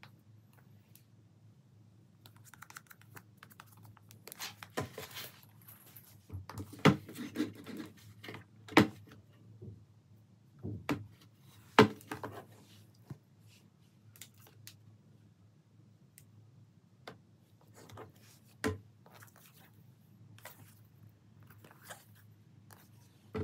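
Handling noise from a laptop in a hard plastic shell case: scattered clicks, taps and rubbing as it is turned over and laid on a table, with a few sharper knocks in the middle.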